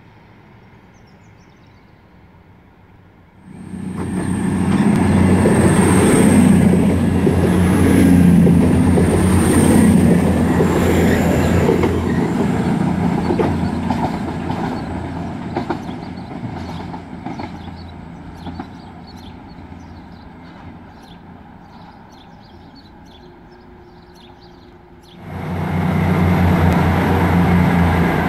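Diesel train engines running loudly under power, with a high-pitched wheel squeal, then fading gradually as the train moves off. After a sudden change, another diesel multiple unit's engine runs with a steady deep hum.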